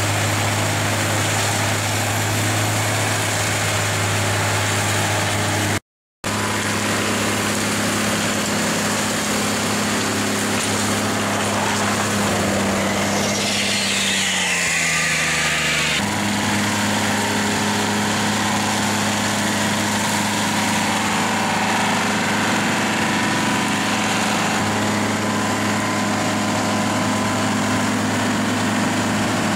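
A JCB tractor's engine running steadily while driving an FAE UMM/S 225 forestry mulcher through brush. The sound drops out for a moment about six seconds in, and midway the pitch sags for a couple of seconds before running steady again.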